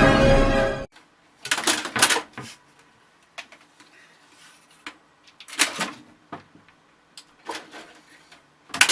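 Music that stops abruptly about a second in, followed by scattered short bursts of rustling and clattering: several brief noisy scrapes and a few sharp clicks with quiet between them.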